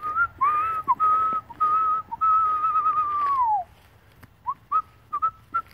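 A person whistling by mouth to call the dogs in. It starts with a rising note, breaks into a few short notes, then holds one long note that wavers and falls away, and ends with a few quick short chirps.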